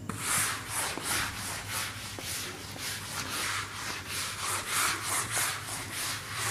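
Whiteboard eraser being rubbed briskly back and forth across a whiteboard, a rhythmic hissing swish of about three strokes a second as the board is wiped clean.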